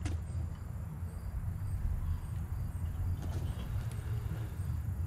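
Crickets chirping in an even rhythm, about two chirps a second, over a steady low rumble. There is a single faint click at the start.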